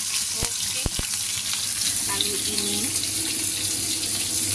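Fish and spring onions frying in oil in a pan: a steady sizzle, with a few light knocks in the first second.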